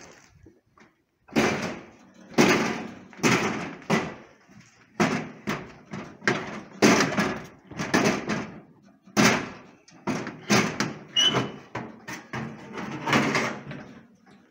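An irregular run of knocks and clatters, about one a second, each dying away quickly, with a short squeak about eleven seconds in.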